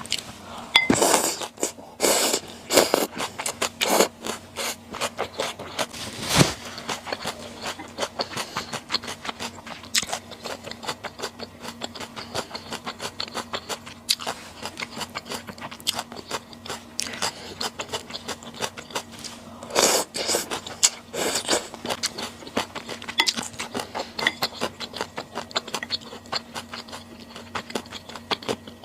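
Close-miked eating sounds: chewing with many quick small clicks and crunches, with louder bursts in the first few seconds and again about twenty seconds in. A faint steady hum runs underneath.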